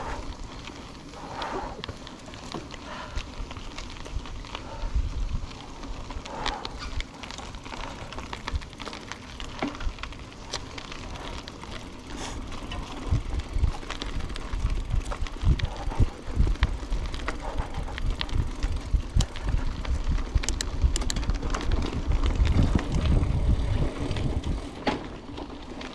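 Hardtail mountain bike riding down a rough trail: a continuous low rumble with many quick clicks and knocks from the bike rattling over bumps. It grows louder and rougher from about halfway on.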